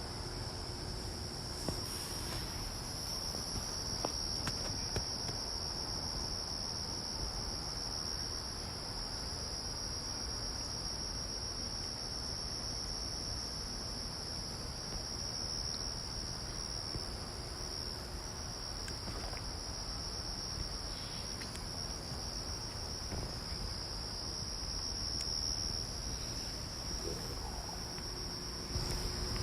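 Crickets trilling in a steady, unbroken high-pitched chorus, over a low background rumble.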